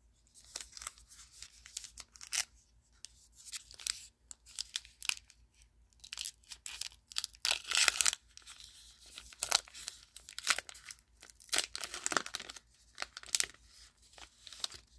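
Baseball card pack wrapper being torn open and crinkled, in a series of short, irregular rips and rustles.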